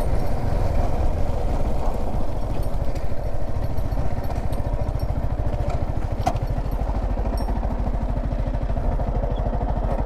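Yamaha R15 V4's single-cylinder engine running at low revs, a steady even pulsing beat with no revving.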